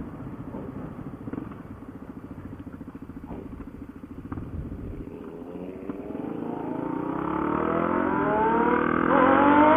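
Motorcycle engine running at a low, steady pulse, then about six seconds in revving up hard under acceleration, its pitch climbing and getting louder, dipping briefly at a gear change and climbing again, as the bike pulls a wheelie in second gear.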